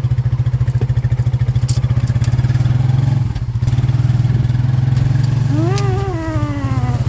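Motorcycle engine running steadily, loud and close, with a brief drop in level about three seconds in. Near the end a long call rises and then falls in pitch over the engine.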